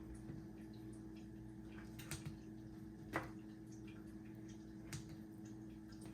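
A few faint, sharp taps of a knife on a cutting board, four or five spread out, as cooked chicken is cut up, over a steady low hum.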